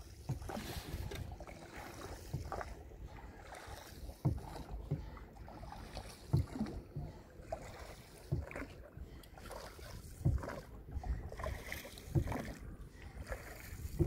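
A long wooden oar rowing a wooden country boat, with a short stroke sound in the water and against the boat roughly every two seconds. Low wind rumble on the microphone underneath.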